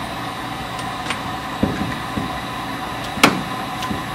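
Heat gun blowing with a steady whir, with a few clicks and knocks from the window balance parts being handled, the sharpest about three seconds in.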